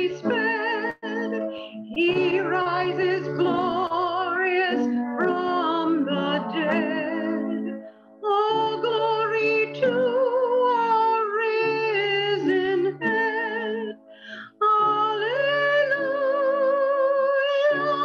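A woman singing with vibrato over sustained accompanying chords, phrase by phrase, with two short breaths between phrases.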